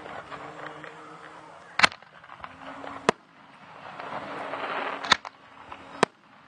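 Aerial firework shells bursting: four sharp bangs spaced one to two seconds apart, with a rising hiss of noise between the third and fourth.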